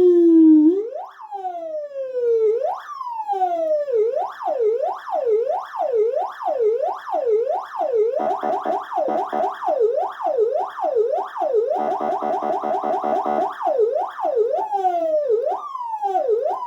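Electronic emergency-vehicle siren on the yelp tone, its pitch sweeping up and down. At first it sweeps slowly, about one cycle every one and a half seconds, then speeds up to about two sweeps a second from about four seconds in, twice with a rapid pulsing tone laid over it, and slows again near the end.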